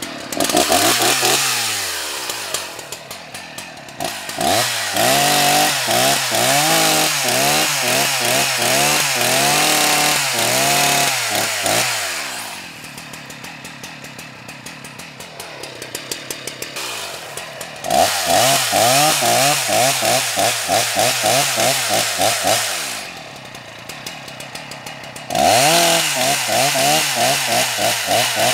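Husqvarna 181 two-stroke chainsaw making test cuts into a tree trunk. It runs at full throttle in four bursts, the longest about seven seconds, its pitch wavering as the chain bites into the wood, and drops back to idle between cuts.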